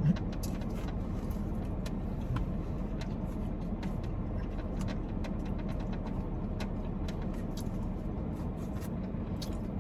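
Steady low hum of a vehicle, with scattered small clicks and taps of eating over it.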